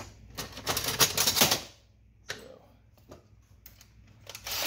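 Rapid light clicking and clattering of small objects being handled on a workbench, in a dense cluster from about half a second to a second and a half in, one lone click a little after two seconds, and another burst near the end.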